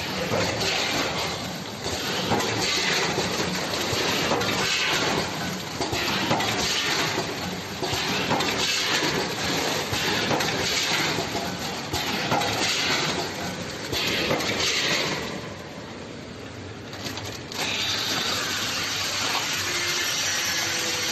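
Multihead weigher packing machine running through its bagging cycle: a steady mechanical clatter with a louder hiss repeating about every two seconds. The sound drops for about two seconds about three quarters of the way in.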